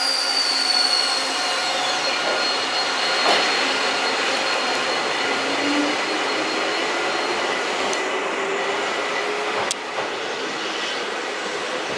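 Eizan Electric Railway car 724, a single-car electric train, pulling away from the platform. A high whine falls away in the first two seconds. Then a low motor note rises steadily in pitch as the car accelerates, over a steady rolling noise.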